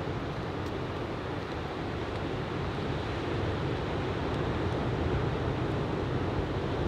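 Steady rush of ocean surf from a typhoon swell breaking along the beach, with wind rumbling on the microphone.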